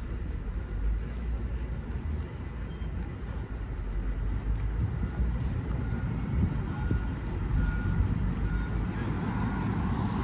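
Street traffic noise: a steady low rumble of vehicles that grows a little louder partway through. From about halfway in, a faint short beep repeats at one pitch, roughly once a second.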